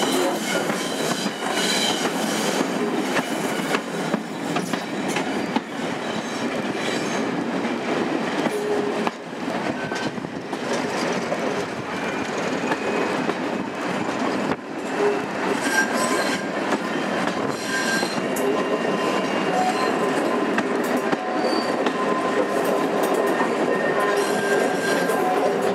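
Heard from an open window of a Mk2 passenger coach, the train running on curved track: a steady rumble and rush with occasional clicks and knocks from the rails. From about halfway on, the wheels squeal against the rails on the curve, heard as thin, steady high tones over the running noise.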